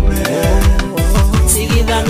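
Instrumental section of an African pop song: a steady beat with repeated deep bass-drum hits under sustained keyboard tones, no singing.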